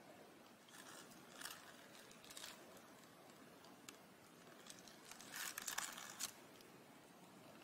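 Faint rustling and crinkling of a paper food wrapper being handled, in a few short bursts, the loudest a cluster about five to six seconds in.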